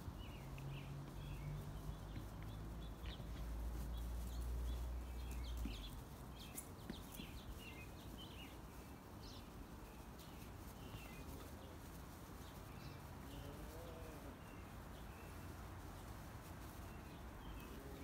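Birds chirping, with a low rumble during the first six seconds.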